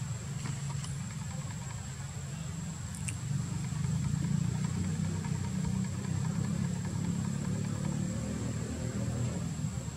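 A steady low engine rumble, like a motor vehicle idling nearby, with a constant faint high-pitched whine above it and a few small clicks.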